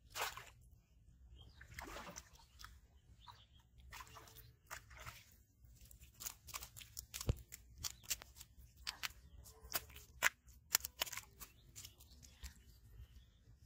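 A landed fish flopping on a bare dirt and mud bank: a run of sharp slaps and crunches, thickest from about six to eleven seconds in.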